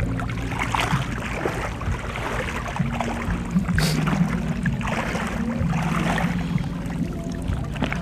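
Shallow sea water sloshing and splashing around someone wading through it, with a low stepping melody of background music underneath.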